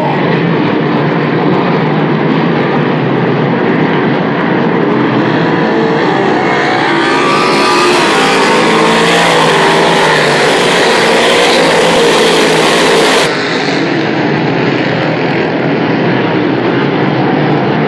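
Big-block modified dirt race cars' V8 engines running hard around the oval, a continuous loud engine noise. It swells as the pack passes close from about seven seconds in, then falls off sharply about thirteen seconds in.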